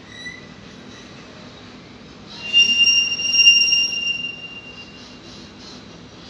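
Freight wagon wheels squealing on the rails: a high, steady squeal at two pitches starts about two seconds in, lasts about two seconds, then fades, over steady background noise.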